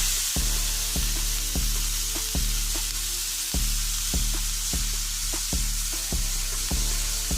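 Food sizzling in a frying pan, a steady hiss, over background music with a steady beat.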